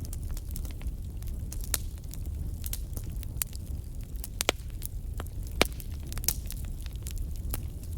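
Wood fire burning in a fireplace, crackling with scattered sharp pops over a steady low rumble; the loudest pop comes a little past halfway.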